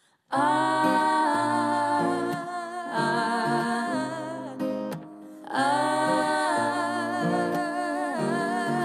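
Opening of a pop song: a woman's wordless vocal line of long held, gliding notes over acoustic guitar, in two phrases, the second starting about five and a half seconds in.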